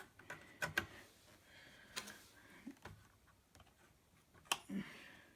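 Scattered faint clicks and taps, about half a dozen, from a tool prying at a small, stubborn wire plug on a laptop motherboard.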